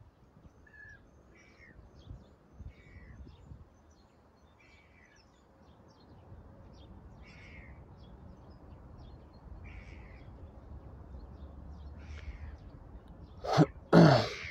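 A bird calling repeatedly in the distance, short calls every second or two, over a low rumble of wind on the microphone. Near the end come two louder, sudden sounds.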